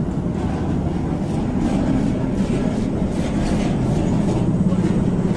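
Knife chopping a red onion on a chopping board, a run of quick, irregular knocks, over a steady low rumble.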